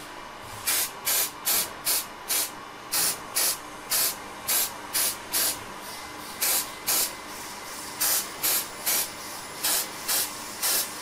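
Spray adhesive being sprayed in about twenty short hissing squirts, roughly two a second, in runs of several with brief pauses between them.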